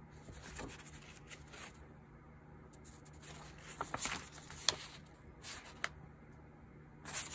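Soft paper rustling and light ticks from handling and leafing through an album's mini photo book, a few brief bursts, the busiest about four to five seconds in.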